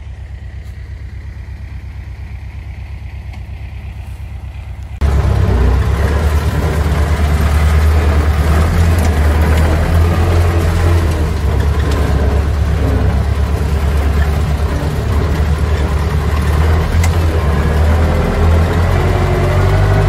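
Diesel tractor engine running steadily, then suddenly much louder about five seconds in, where it keeps going with a heavy low drone.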